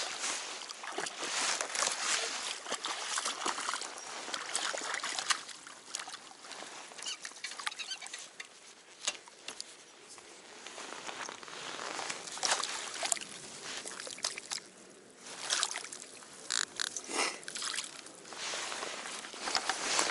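Water splashing and sloshing in irregular bursts, with a quieter stretch midway.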